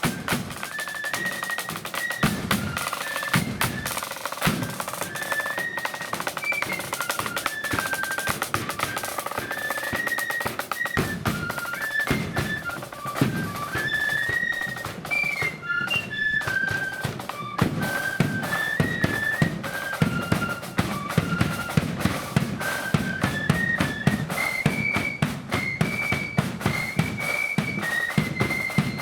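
Blood-and-thunder marching flute band playing a tune: a high flute melody over rapid snare drum rolls and bass drum beats.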